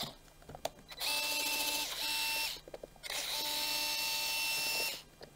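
Electric screwdriver motor running in three spells, a short one, a brief one and a longer one of about two seconds, each a steady even whine, as it backs out the carburetor's mounting screws.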